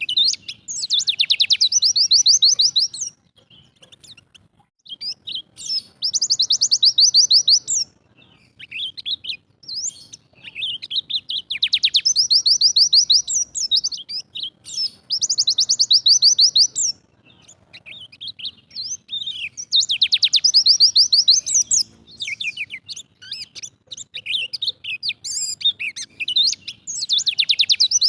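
Bali pleci (white-eye) singing its 'tembakan' song over and over. Each phrase of quick twittering notes runs into a very fast, high trill lasting about two seconds, about six times.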